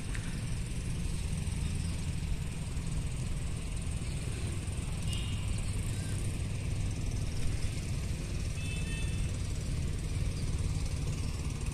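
Steady low drone of a boat's engine running out on the water, with an even hiss above it.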